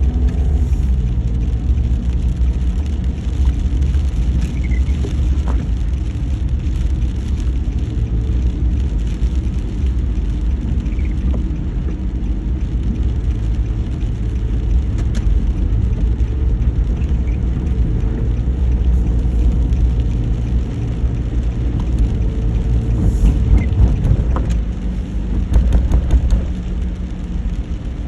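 Steady low rumble of a moving vehicle, with a few faint clicks and short chirps over it.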